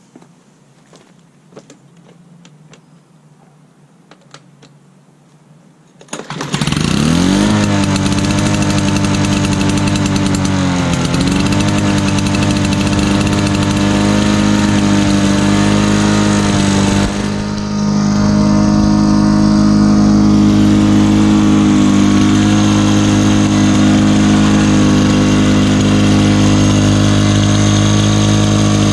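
A 2003 Lawn-Boy 10323 Silver Pro push mower's engine, set on choke after three primes, starts about six seconds in, its pitch rising as it catches, then runs on steadily. It wavers briefly twice, around eleven and seventeen seconds in. Before the start there are only a few light clicks of handling.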